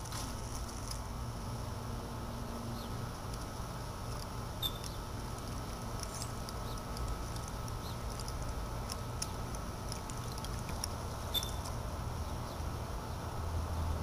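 Small solar fountain pump's spray of water jets pattering steadily back into a bucket of water, with a few faint clicks and a low steady rumble underneath.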